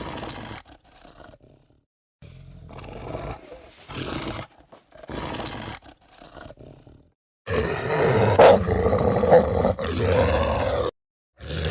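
Film werewolf sound effects: a string of short, separate creature growls and roars cut apart by dead silence, then a long, loud roar lasting about three seconds in the second half, and another roar beginning near the end.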